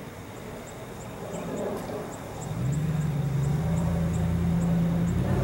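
A low, steady engine drone comes in about two and a half seconds in and grows louder, then holds. A faint, high ticking repeats about three times a second throughout.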